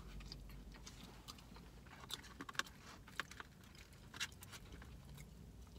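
A person chewing and biting into a sandwich, with scattered soft clicks and crackles over a quiet background.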